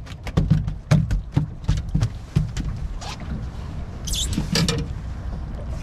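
A freshly landed redfish (red drum) flopping and slapping on the boat deck: a quick run of thumps, about three a second, that dies away after about two and a half seconds. There is a short hiss about four seconds in.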